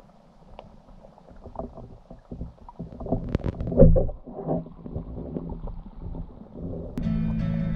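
Muffled underwater knocking and rumbling picked up by a submerged camera, with a cluster of sharp knocks in the middle, the loudest just before the fourth second. Background music comes in near the end.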